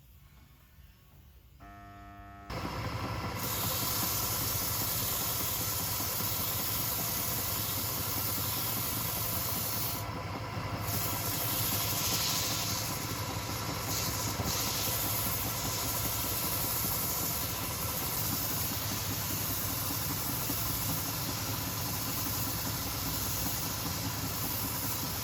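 Wood lathe running steadily, a low hum under a loud hiss, starting abruptly a couple of seconds in. The hiss drops away briefly about ten seconds in.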